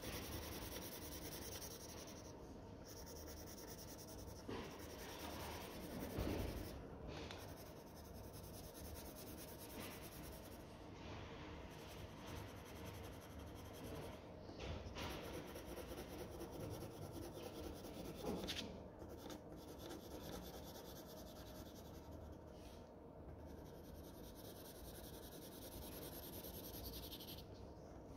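Coloured pencil scratching faintly across paper in repeated shading strokes, with a couple of brief, slightly louder rustles.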